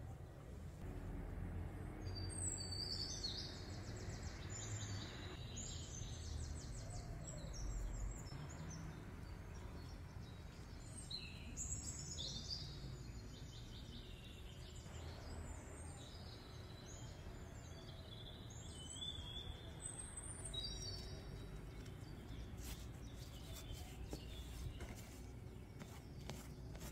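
Small birds chirping and trilling in several bursts over a low, steady background rumble, with a few faint clicks near the end.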